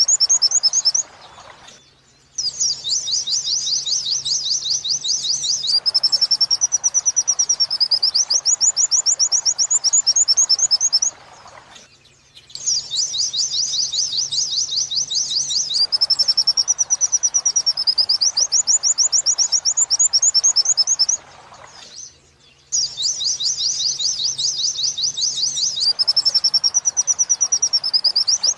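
White-eye (pleci) song of the 'wit-wit sambung kunti' type, played as a looped training recording: a fast high trill of rapid repeated notes that runs into a wavering whistle and back into the trill. The same phrase repeats about every ten seconds, with a short pause between repeats, over a faint hiss.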